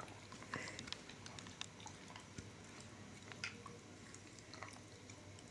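Cocker spaniel chewing at a sticky toffee stuck in its teeth: faint, scattered clicks and smacks of its jaws and lips.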